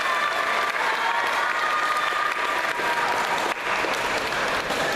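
Audience applauding steadily between badminton rallies.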